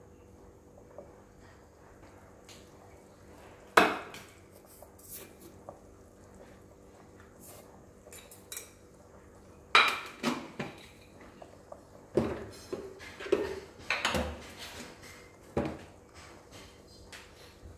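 Metal kitchenware clattering: dishes and utensils knocking and clinking. There is one sharp knock about four seconds in, then a run of clatters from about ten to sixteen seconds, over a faint steady hum.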